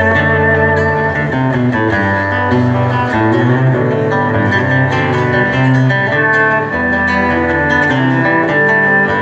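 Live acoustic band playing an instrumental passage: acoustic guitars plucked and strummed, with a bowed violin line over them.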